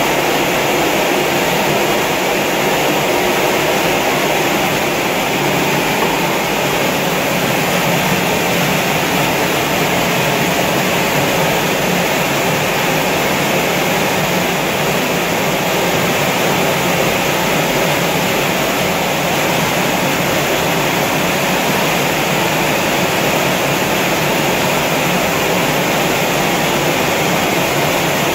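Grain sorting machine for mung beans running steadily: a constant, loud machine hum and hiss with no change in pace or pitch.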